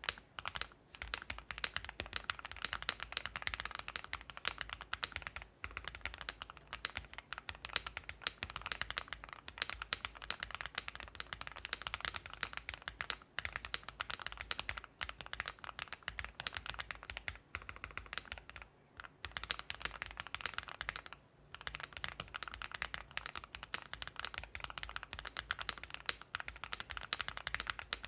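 Fast, continuous typing on a mechanical keyboard with factory-lubed Gateron x Swagkeys Deepping linear switches (58 g springs, 3.7 mm travel) mounted on a polycarbonate plate with all foams installed. The rapid keystrokes run with only a few brief pauses, with no spring ping or scratch.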